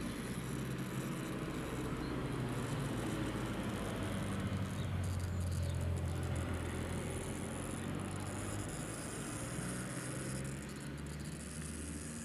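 RC scale rock crawler's electric motor and geared drivetrain whirring steadily under load as it crawls up a steep rocky slope, its pitch shifting a couple of times near the end, with light scrabbling of the tires on dirt and stone.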